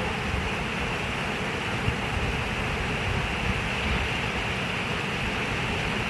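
Flowing water rushing steadily, an even noise that holds the same level throughout with no splashes or breaks.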